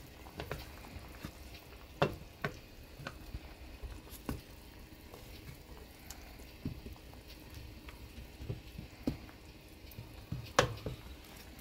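Spatula stirring a pot of dakdoritang (spicy braised chicken with potatoes), with irregular knocks and clicks as it moves the pieces and strikes the pot. The loudest knocks come about two seconds in and near the end.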